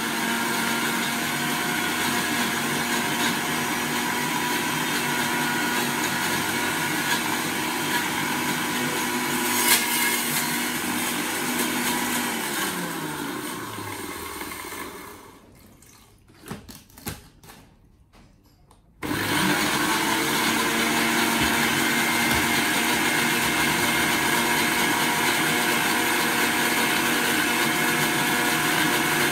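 Electric blender running steadily while blending fruit for juice. About twelve seconds in, the motor winds down to a stop; a few small clicks follow in the pause, then it starts again abruptly and runs on steadily.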